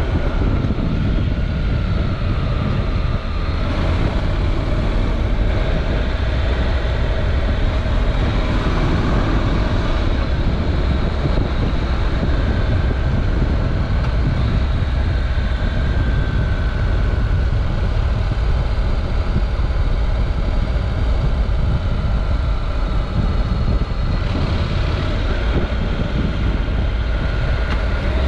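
Honda NC700X parallel-twin motorcycle engine running steadily while riding through curves, mixed with wind rush on the onboard microphone. The engine note sags slightly early on and climbs again near the end as the throttle changes.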